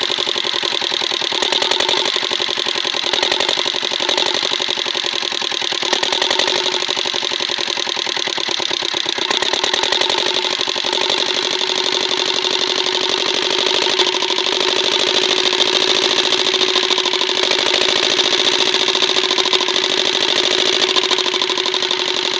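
Kirloskar single-cylinder diesel engine of a water pump set running steadily, just after an overhaul with new piston rings and a new head gasket.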